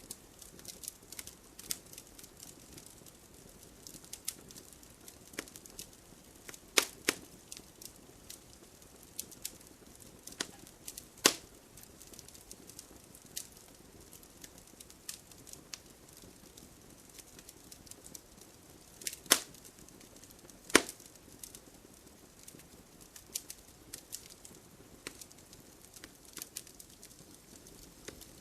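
Wood fire crackling, with a steady scatter of small snaps over a low hiss and a few louder pops of burning logs, two close together about seven seconds in and others around eleven, nineteen and twenty-one seconds.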